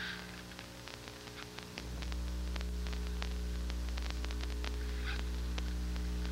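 Steady electrical mains hum over tape static from an old VHS recording. The hum gets louder about two seconds in, and many faint, irregular ticks sound through it.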